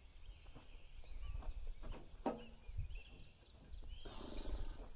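Wooden knocks and a brief scrape as a freshly sawn red pine board is lifted and slid off a portable sawmill's log bed, with a sharper knock about two seconds in and the scrape near the end. Birds chirp in the background.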